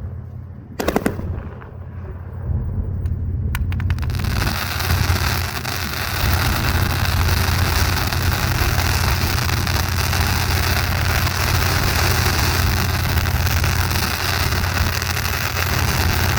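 Fireworks going off: a few sharp bangs, then from about four seconds in a dense, continuous rapid-fire crackle, over a steady low hum.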